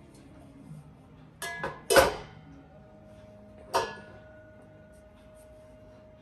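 Titanium exhaust tips clanking as they are handled and set down on a scale: a few light knocks about a second and a half in, the loudest clank near two seconds, then another clank near four seconds, each leaving a ringing metallic tone that lingers.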